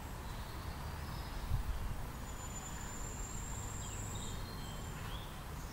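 Outdoor ambience: a steady low rumble with a thin, high, insect-like whine lasting about two seconds in the middle and a few faint bird chirps near the end.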